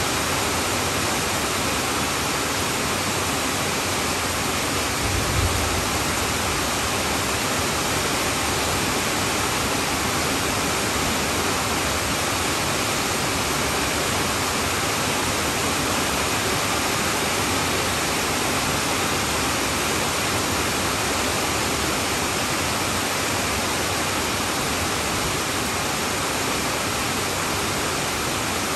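Heavy rain falling on a tin roof, a steady dense hiss. A brief low thump about five seconds in.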